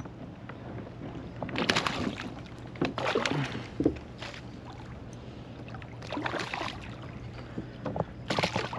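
Water splashing and knocking about a kayak in several short bursts, over a steady low hum.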